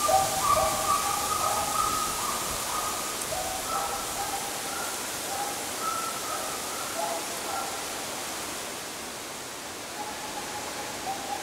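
Russian hounds giving tongue on a hare's trail out of sight: several drawn-out baying calls, on and off, thinning out past the middle and picking up again near the end, over a steady hiss.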